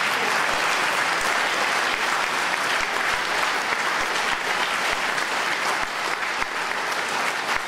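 A large audience applauding: steady, dense clapping that eases slightly near the end.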